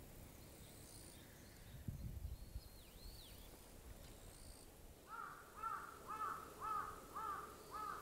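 A crow cawing six times in a steady series, the calls about half a second apart, in the second half. A brief low rumble comes about two seconds in.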